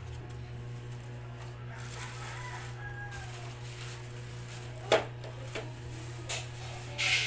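Plastic stand-fan parts being handled in their plastic wrapping. About five seconds in there is a sharp click, then two lighter knocks and a short crinkle near the end, over a steady low hum.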